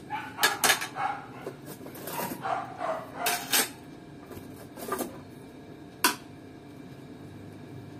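A string of short, sharp animal calls, like barks, repeated quickly over the first three and a half seconds, then two separate clicks.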